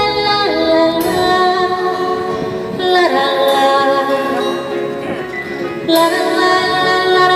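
A woman singing a slow Korean ballad through a microphone and PA, with held, gliding notes over acoustic guitar accompaniment.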